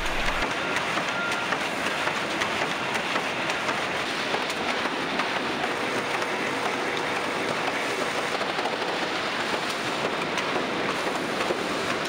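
Veneer-line machinery in a plywood mill running: a steady rush of noise with dense fine clicking and rattling from the conveyors and veneer handling.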